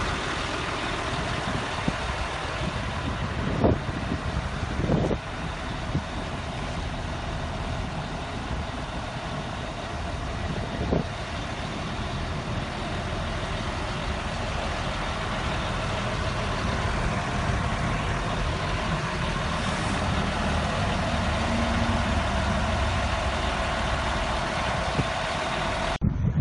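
Caterpillar 140H motor grader's diesel engine idling steadily, with a few brief knocks over it.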